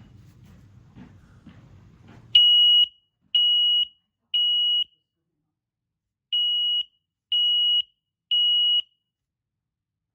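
X-Sense SC07-WX combination smoke and carbon monoxide alarm sounding on test: six loud, high-pitched beeps of about half a second each, in two groups of three with a pause between. This is the three-beep smoke-alarm pattern. Low handling noise comes before the first beep.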